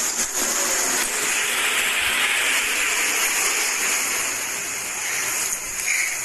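A loud, steady rushing hiss, strongest for a few seconds in the middle.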